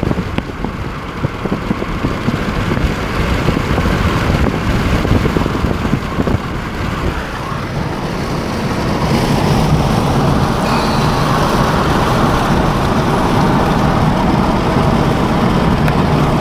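Car driving along a road: steady engine and tyre rumble, growing louder about eight seconds in.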